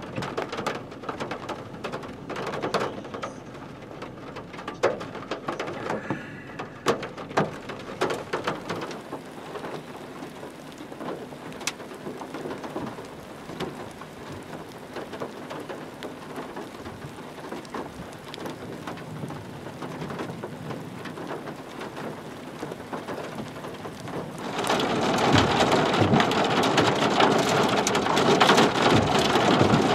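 Rain falling on a vehicle's roof and glass: scattered separate drops ticking at first, then turning suddenly heavier and denser about 25 seconds in.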